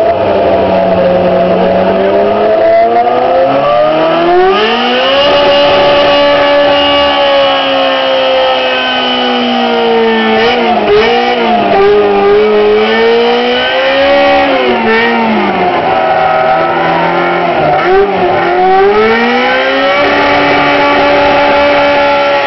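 Ferrari F355 F1 GTS's flat-plane-crank V8 being revved loudly while the car is stationary: the revs climb and are held high for several seconds, drop back with a few quick blips of the throttle, then climb and hold high again near the end.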